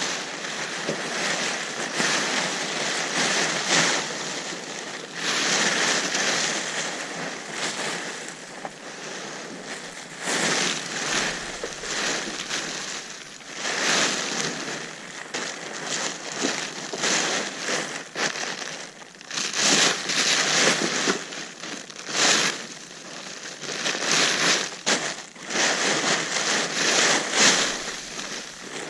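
Plastic tarp rustling and crinkling in irregular swells as it is handled and spread out.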